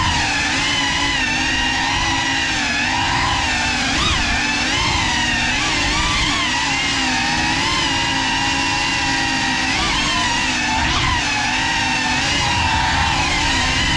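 GEPRC Cinelog35 cinewhoop's motors and ducted propellers whining, several tones rising and falling together as the throttle changes.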